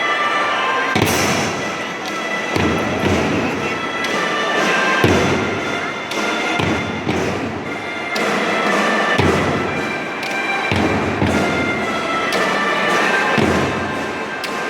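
School drum band playing: heavy bass-drum strokes every second or two with snare drums and cymbal crashes, under a melody of held high notes.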